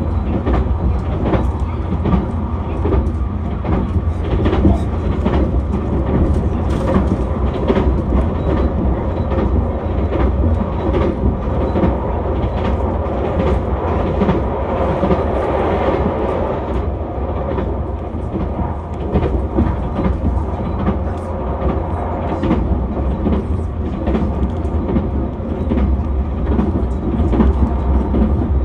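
Cabin running noise of a JR West 273 series limited express electric train at speed: a steady low rumble with irregular clicks as the wheels pass rail joints. It grows louder for a few seconds around the middle while the train crosses a river.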